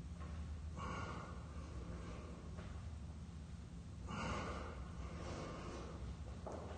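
A man breathing hard while exercising: two long, noisy breaths, one about a second in and one about four seconds in, over a steady low hum.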